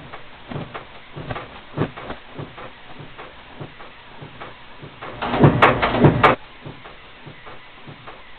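Disk punch machine running, with a patter of light mechanical clicks. About five seconds in comes a louder clattering stroke lasting about a second, with two sharp knocks: a press cycle.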